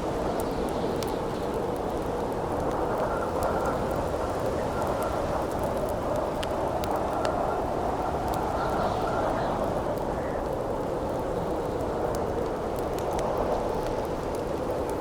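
Wind howling steadily in slowly swelling gusts over a wood campfire that crackles with scattered sharp pops.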